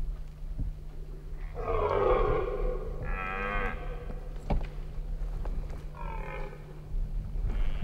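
Rutting red deer stag roaring: three deep, drawn-out roars of about a second each, with a fourth starting near the end.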